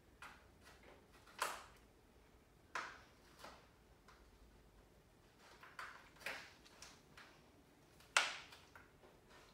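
A toddler's fingers picking and poking at a cardboard advent calendar, making about ten small sharp clicks and taps at uneven intervals. The loudest comes about eight seconds in.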